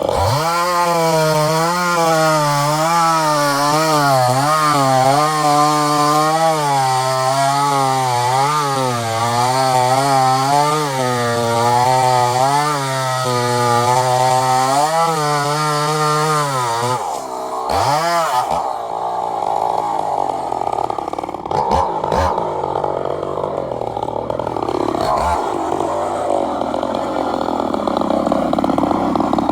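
Two-stroke chainsaw running at high revs, its pitch dipping and recovering over and over as it is loaded in the cut. About 17 seconds in it drops off and briefly revs once more. After that comes a rougher, lower running sound with a few sharp cracks.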